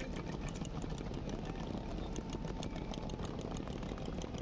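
City street ambience: a vehicle engine running steadily at idle, under a steady noise of the street with many small clicks and taps.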